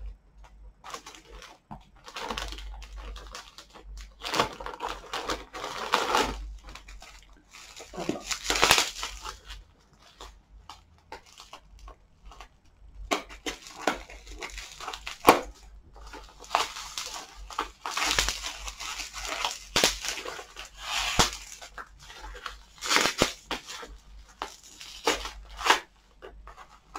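Packing paper being unwrapped by hand, crinkling, rustling and tearing in irregular bursts.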